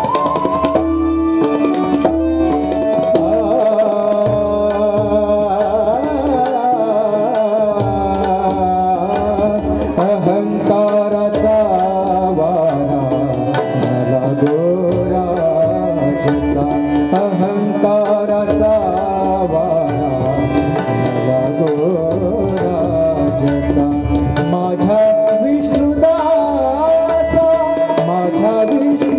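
Indian devotional song performed live: a male voice in long gliding melodic phrases over a sustained harmonium, with bamboo flute and hand drums keeping a steady beat.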